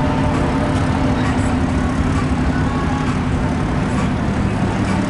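Union Pacific coal train passing close by, led by GE GEVO diesel locomotives: a steady, loud rumble of the running engines and wheels on the rails, with a constant low hum.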